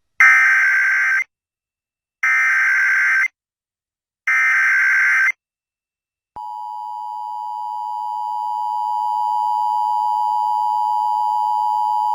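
Emergency Alert System test: the SAME digital header plays as three separate one-second bursts of warbling data tones. About six seconds in, the steady two-tone EAS attention signal begins and grows louder over its first few seconds.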